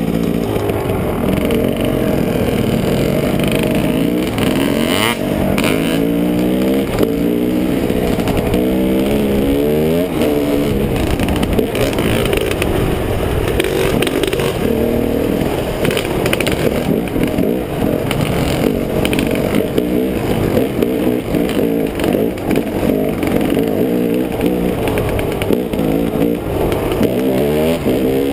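Dirt bike engine heard close up while riding, climbing in pitch and dropping back again and again as the throttle opens and closes.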